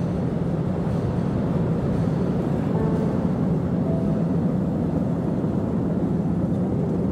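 Electric tourist train of Postojna Cave running on its rails through the cave: a steady low rumble of the moving passenger cars.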